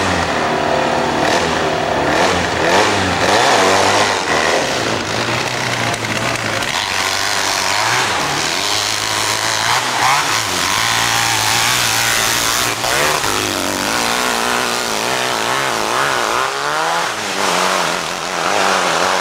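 Competition hillclimb motorcycle engine running hard as the bike climbs a steep dirt hill, its pitch rising and falling again and again as the throttle is worked.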